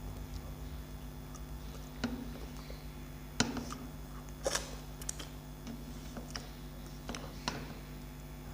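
Eating rice and chicken curry by hand: scattered sharp clicks and taps of fingers and food on a stainless steel plate, with chewing, over a steady low hum. The loudest tap comes about three and a half seconds in.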